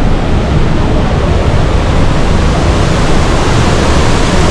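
Loud, steady rushing noise of a nearby waterfall.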